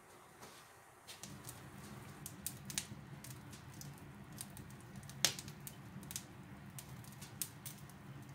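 Wood fire crackling in the open firebox of a small cast-iron wood stove: irregular sharp pops starting about a second in, one louder than the rest near the middle.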